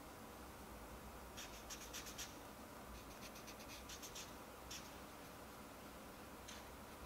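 Faint scratching of a felt-tip marker writing on a small white ball: quick runs of short strokes about a second and a half in and again around three seconds in, then two single strokes later.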